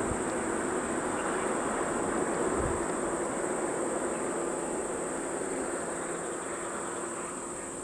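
Insects singing in a steady high-pitched drone, over a steady lower hum.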